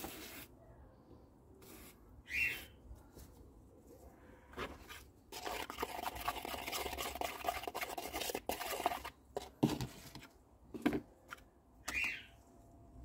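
A palette knife scraping and stirring wet cement paste in a plastic bowl for a few seconds midway, with short scrapes and rubs of the paste being worked onto a concrete statue before and after.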